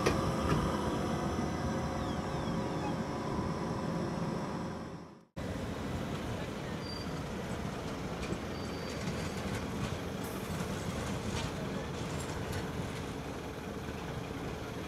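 AnsaldoBreda Sirio low-floor tram running past on its rails: wheel and rolling noise with a steady electric hum. The sound fades out and breaks off about five seconds in. It then resumes as street noise with the tram approaching and a couple of brief high squeals.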